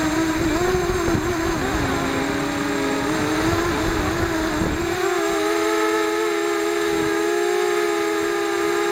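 Motors of an FPV racing quadcopter whining in flight, heard from on board. The pitch wavers with throttle over rough wind rush for about five seconds. Then the wind rush drops and the motors hold one steady pitch.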